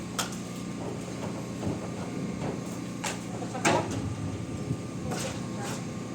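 A handful of sharp knocks and clanks, the loudest about three and a half seconds in, over a steady machine hum.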